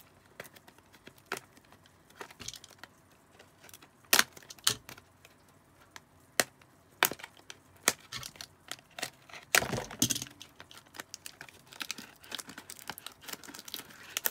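A sealed box of trading cards being unwrapped and opened by hand: scattered sharp crackles and snaps of plastic wrap and cardboard, with a denser crinkling stretch about ten seconds in.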